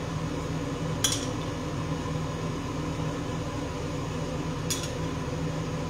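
Two short, sharp clinks of glass or dishware, one about a second in and one near the end, over a steady low hum.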